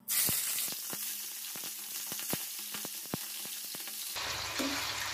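Hot oil sizzling in a frying pan with scattered sharp pops and crackles. About four seconds in, after a cut, chicken livers frying in bubbling oil, with a denser sizzle.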